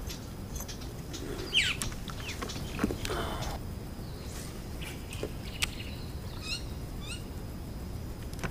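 Wild birds chirping and calling: one sweeping call about a second and a half in and a quick run of rising chirps a little past the middle. Under them a steady low rumble, with a few sharp clicks and a brief rustle from handling.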